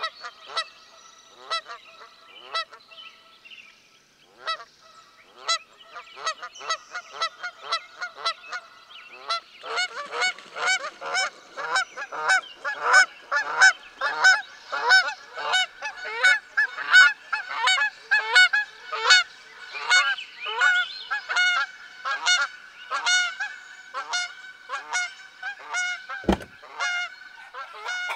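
A flock of geese honking: many short calls overlapping, growing denser and louder about ten seconds in. A single dull thump sounds near the end.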